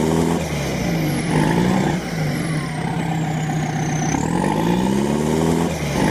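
Truck engine sound effect revving up in long rising sweeps, twice, over a steady engine hum, repeating like a loop.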